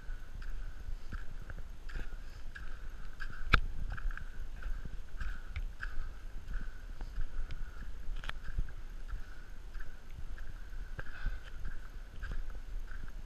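Footsteps crunching on volcanic ash and cinder at a steady walking pace, about two steps a second, over a low rumble. A sharp knock about three and a half seconds in, and another about eight seconds in.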